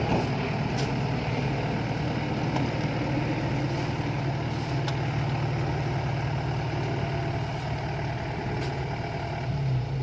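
Yanmar rice combine harvester's diesel engine running steadily, with a few faint clicks.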